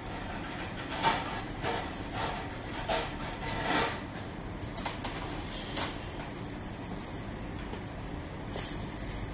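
Cabbage, bacon and water boiling in a saucepan over a gas flame: a steady bubbling with scattered short pops and light clicks.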